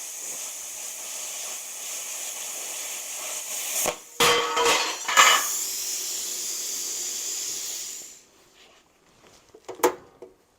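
Steady hiss of steel plate being cut, with loud metal clanks about four to five seconds in. The hiss cuts off about eight seconds in, and a single knock follows near the end.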